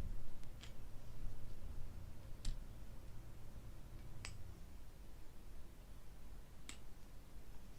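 Four sharp, light clicks a couple of seconds apart, from small items or their packaging being handled during an unboxing.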